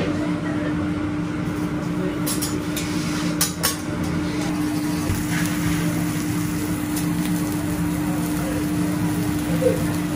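Steady fan-like hum of teppanyaki griddle ventilation, with a few sharp metallic clicks about two to four seconds in.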